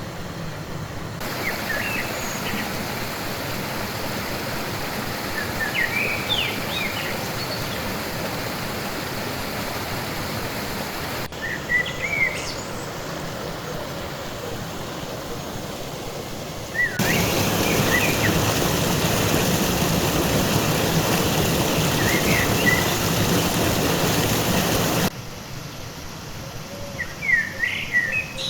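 Steady rush of flowing water with small birds chirping in short bursts now and then. The rush jumps abruptly in level several times, loudest for several seconds past the middle.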